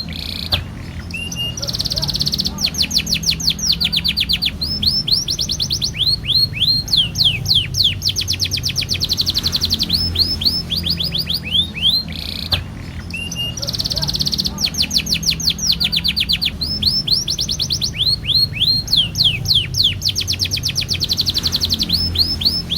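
Domestic canary singing a long unbroken song of fast trills and rolls, each made of rapidly repeated sweeping notes, with a faint steady low hum beneath.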